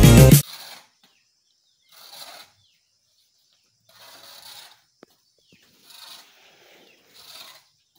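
Background music stops about half a second in. Then come four faint scrapes of a shovel on the ground, each under a second and spaced about a second and a half apart.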